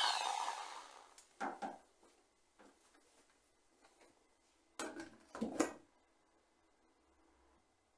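Aerosol spray hiss trailing off, then two short knocks. About five seconds in comes a quick cluster of metallic clicks and knocks as a coil-sprung bicycle saddle and its clamp are handled onto a chrome seat post.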